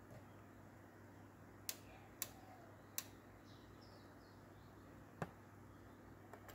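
Four sharp, separate clicks of knobs or switches being worked on bench test equipment (oscilloscope and signal generator), over a faint steady low hum.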